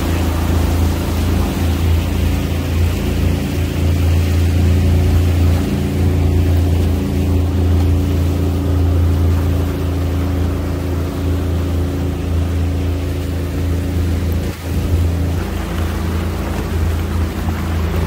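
Outboard motor of a small fishing boat running steadily at trolling speed: a constant low drone with the rush of water and wind over it.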